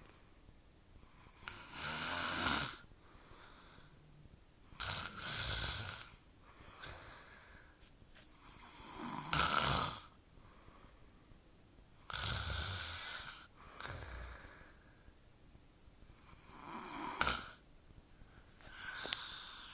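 A man snoring in his sleep: loud snores that come back about every four seconds, with quiet breathing between them.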